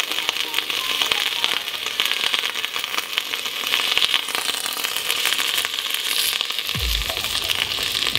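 Hot steam iron soleplate sizzling and crackling against popcorn kernels on aluminium foil as steam escapes, a dense run of fine crackles. A low thump about seven seconds in.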